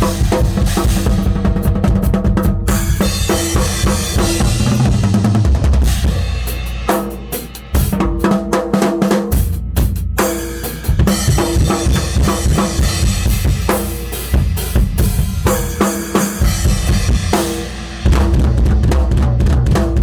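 Tama drum kit played, with bass drum and snare struck in a dense, continuous pattern and a few short breaks.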